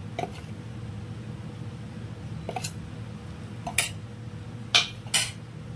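A handful of short, sharp clicks and taps of steel kitchen utensils: a spoon, the steel mixer-grinder jar and a steel plate. The loudest taps come about four and five seconds in, over a steady low hum.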